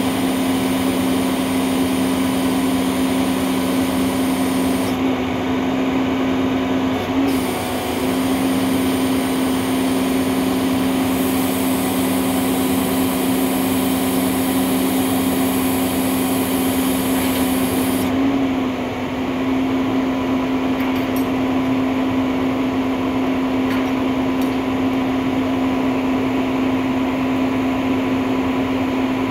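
Skip loader truck running with a steady machine hum as its hydraulic lifting arms lower a skip bin onto the truck bed. One part of the hum drops out briefly about five seconds in and stops for good around eighteen seconds in, leaving a single steady tone.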